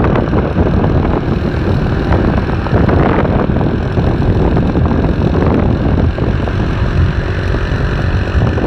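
Steady rumble of a car on the move: engine and road noise, mostly low and continuous, with no break.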